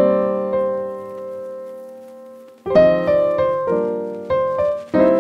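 Background piano music: a chord rings and slowly fades, then about halfway through a run of struck notes begins.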